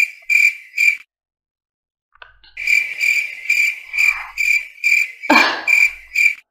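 Cricket chirping in a steady rhythm, about two chirps a second. It breaks off about a second in and starts again about a second and a half later. A brief, louder sound cuts in about five seconds in.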